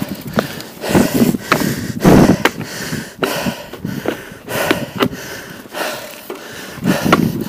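A mountain biker breathing hard, about one heavy breath a second, while pedalling up a dirt climb, with short clicks and knocks from the bike on the rough trail.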